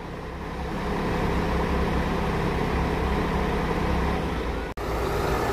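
Diesel engine of a Marcopolo G8 double-decker coach running steadily at low revs, a little louder from about a second in. A brief break near the end.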